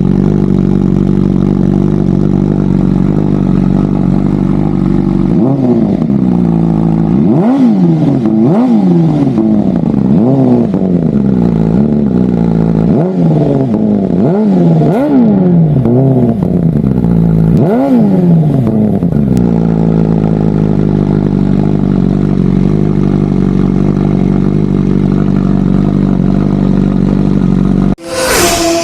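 BMW M1000RR inline-four idling through an SC-Project S1 Euro 5 slip-on muffler, then blipped about ten times in quick revs that rise and fall sharply, then settling back to a steady idle. Near the end the engine sound cuts off suddenly into a short burst of another sound.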